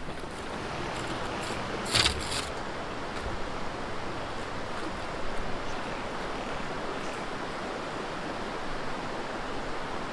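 Mountain stream rushing steadily over rocks. About two seconds in, a brief clatter of a few sharp knocks.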